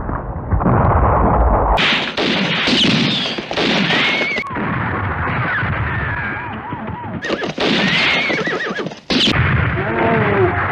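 Western-film soundtrack of horses whinnying again and again over the noise of hooves and commotion. The sound changes abruptly several times where the film cuts.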